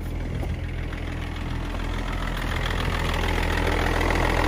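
BMW M57 inline-six diesel idling steadily, getting a little louder toward the end. Its crankshaft pulley vibration damper has failed: the engine turns but the belt-driven ancillaries don't.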